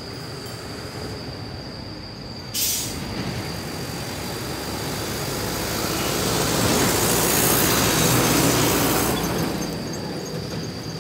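A truck driving past on the road, its noise swelling to a peak and then fading, with a sudden sharp hiss about two and a half seconds in.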